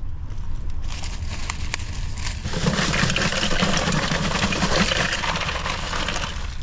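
Bag of ice being emptied into a cooler: plastic crinkling with ice cubes rattling and sliding, a rain-like crackle that builds from about a second in and is loudest in the middle.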